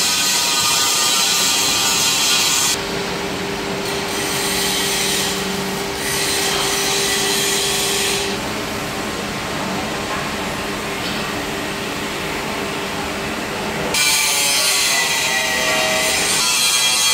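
Power-tool noise from a CNC drilling machine: a rough, steady grinding noise with a faint steady hum under it. It drops in level about three seconds in and grows loud again about fourteen seconds in.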